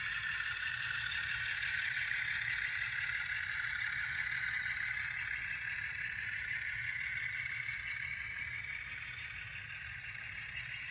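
HO scale model freight train of gondola cars rolling past on the track, with the steady running noise of wheels on rails. It eases off a little over the second half.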